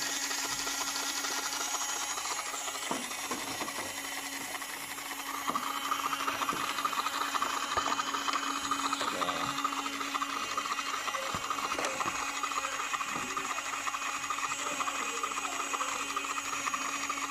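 An RC Leopard 2 tank switched on and running: a steady electric hum and hiss, with a higher whir joining about five seconds in and a few handling clicks.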